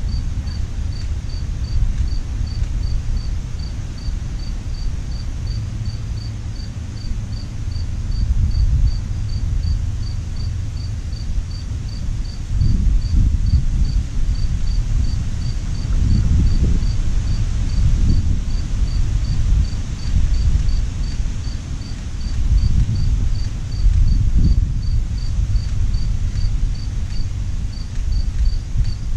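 An insect chirping steadily in a high, even pulse about twice a second, over a loud low rumble of wind on the microphone that rises and falls in gusts.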